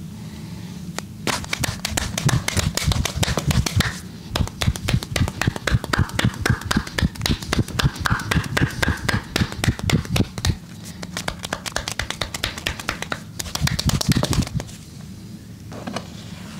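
Massage practitioner's hands striking the body in a rapid percussive run, several slaps a second. There are short breaks, and it stops near the end.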